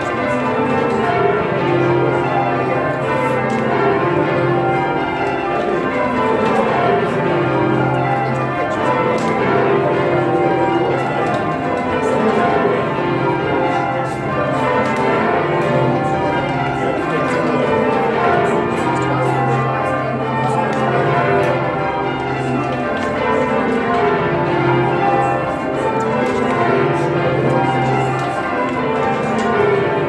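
A ring of twelve church bells rung in changes, heard from the ringing chamber below: an unbroken stream of bell strokes in rows that fall in pitch from the highest bell to the lowest, over and over.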